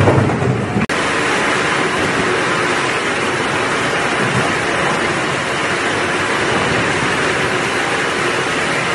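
Cassava processing machine running, with roots and pieces tumbling in its rotating wire-cage drum: a steady, even hiss and rumble that starts after a brief break about a second in.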